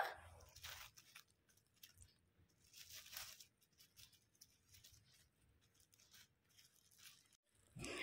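Faint crinkling of a thin plastic bag as a cockatiel moves about inside it among its food, a few soft rustles and crunches, the clearest about half a second and three seconds in.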